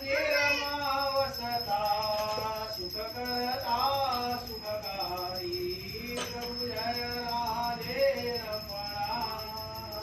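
Music: a sung melody over jingling bells.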